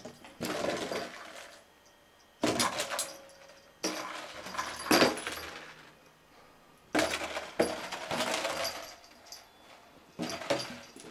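Clear plastic food carton with a few dry cat kibbles inside, rattling and clattering as a cat bats it and pushes it across a carpet. It comes in repeated bursts of a second or two, with short pauses between.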